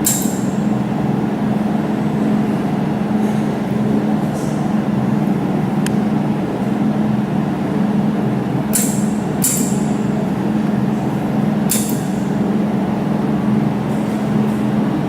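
Laser jewelry welding machine running with a steady low hum, with a handful of short, sharp hissing snaps as it fires welding pulses, two of them close together just past the middle.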